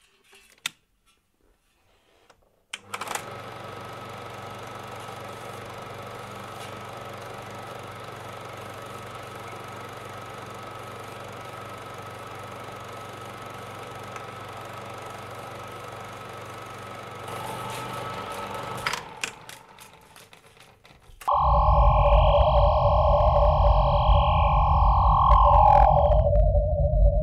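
Electronic sound effects for closing logo cards: a steady hum with a held high tone starting about three seconds in and stopping near nineteen seconds, then, after a brief drop, a louder wavering electronic drone over a deep rumble from about twenty-one seconds in.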